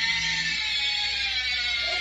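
One long, high, meow-like wail that holds its pitch.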